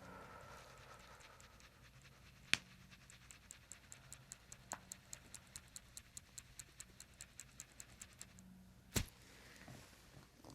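Faint, regular ticking, about four ticks a second, with two sharp, louder clicks: one about two and a half seconds in and a stronger one near the end.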